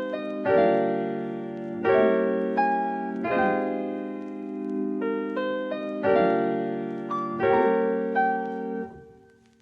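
Background music: soft keyboard chords, a new chord struck about every second and a half, fading out near the end.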